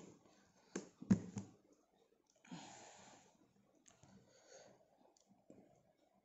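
Handling sounds of a Casio scientific calculator being set down on a sheet of paper and switched on: two sharp clicks about a second in, soft brushing sounds, then a few faint key clicks near the end.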